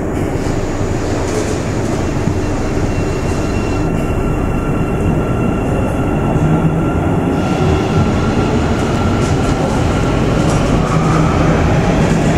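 Metro train running, heard from inside the carriage: a steady rumble of wheels and running gear, with a faint steady whine joining about three seconds in.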